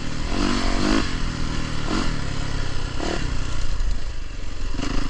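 Dirt bike engine revving in short bursts as the throttle is opened and closed, with a quick rise about half a second in and another near three seconds. It settles to a steadier note near the end.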